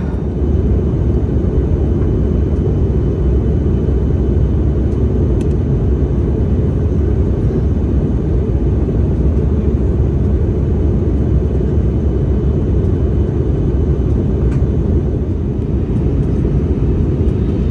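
Cabin noise inside an Airbus A320neo airliner: a steady low rumble of engines and rushing air, heavy in the bass and unchanging throughout.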